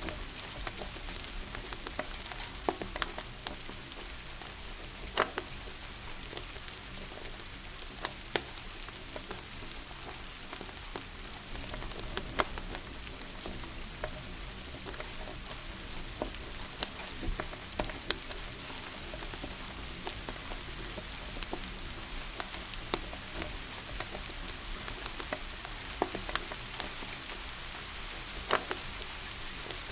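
Steady rain hiss under the irregular crackles and pops of a wood fire burning in a fireplace.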